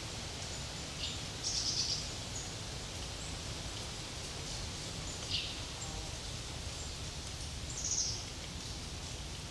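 Forest ambience with small birds giving short high chirps and brief trills, the loudest about a second and a half in and again near the end, over a steady low rumble and hiss.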